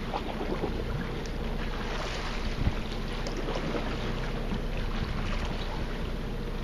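Boat ambience: a steady low mechanical hum with wind noise on the microphone, and a light knock a little before the middle.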